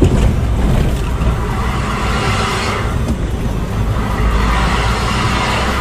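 Motorcycle riding along a rural road: steady engine and road noise under a low rumble, with a hiss that swells twice, around two and five seconds in.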